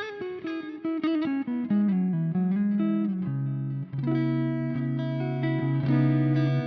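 Electric guitar reamped through a Soldano SLO100 clone tube amplifier, playing a picked lead phrase: a run of quick notes, then held, sustaining notes from about four seconds in.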